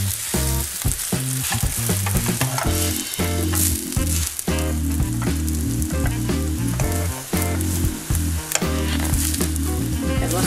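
An egg omelette sizzling as it fries in a nonstick pan, with a silicone spatula scraping and pushing at its edges.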